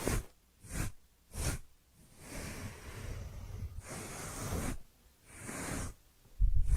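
Soft breathy swishing noises: three short swishes, then two longer stretches of hiss. Near the end a loud low rumble sets in.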